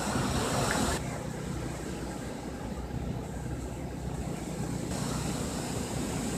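Steady rushing of hurricane wind, with a low rumble underneath. The high hiss drops away about a second in and comes back about five seconds in.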